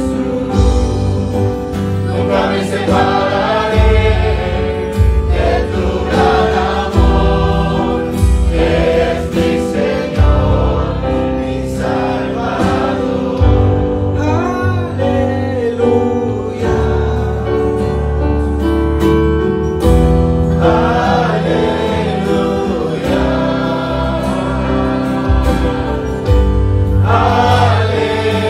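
Live worship music: a band with electric bass and acoustic guitar under a man and a woman singing a praise song in Spanish.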